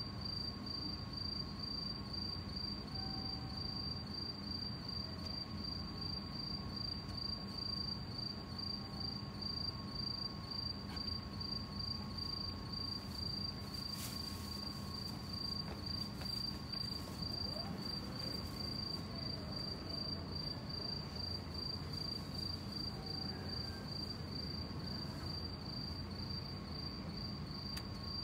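Crickets chirping in a steady high trill of evenly repeated pulses, with a fainter steady tone and a low hum underneath.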